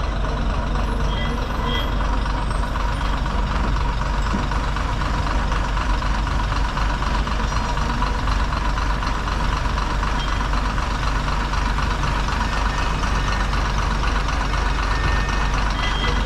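Diesel engine of a private bus running steadily at a standstill, an even, unchanging rumble.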